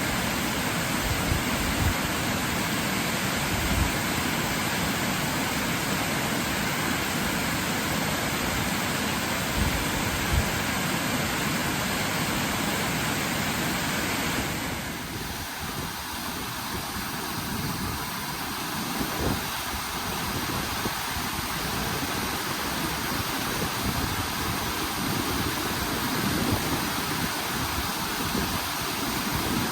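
Waterfall rushing in a steady roar of falling water. About halfway through the sound changes abruptly and becomes a little quieter and duller.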